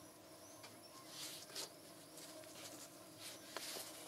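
Faint rustling and scattered small clicks of gloved hands turning and gripping a plastic engine oil bottle, with a few sharper ticks near the end.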